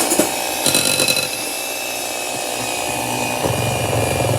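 Electric hand mixer running in cake batter, steady and loud, with a brief clatter just under a second in. About three and a half seconds in, a deeper hum sets in under the motor sound.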